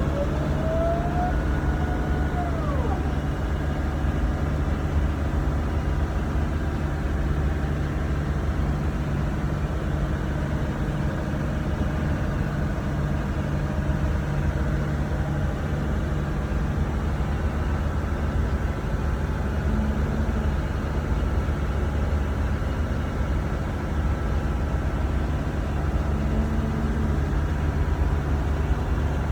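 A yacht's engines running steadily under way, a continuous low drone heard on board. A brief tone rises and then falls in the first few seconds.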